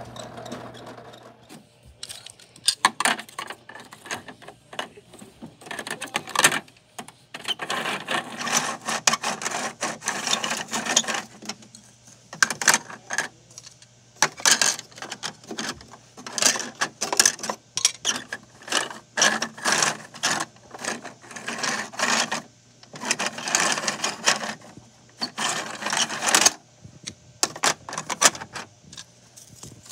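Rapid plastic clicking and rattling from a Bruder toy rear-loader garbage truck as its hopper mechanism is worked by hand and Lego pieces are loaded and knocked about inside it. The clatter comes in bursts of one to several seconds with short pauses between.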